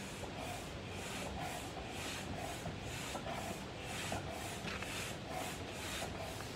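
Hand air pump worked in steady strokes, a rush of air about twice a second, pushing air into an inflatable pool.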